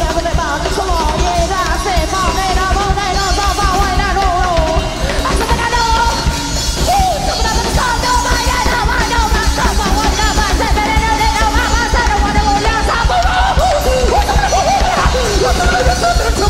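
Live band playing: a drum kit keeps a dense, steady beat under electronics and a wavering, sliding melodic line.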